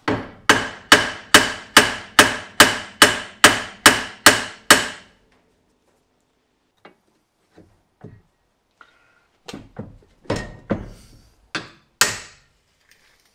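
Steel hammer blows on the side of a Jaguar XJ front hub carrier, about a dozen sharp, ringing strikes in quick succession, then a pause and a few more knocks. The hammering shocks loose the stuck tapered lower ball joint.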